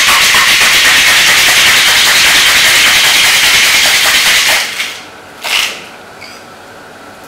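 Ice rattling in a cocktail shaker shaken hard and fast, the long vigorous shake that thickens the double cream in the drink. It stops about four and a half seconds in, followed a second later by a brief sharp sound as the shaker is broken open.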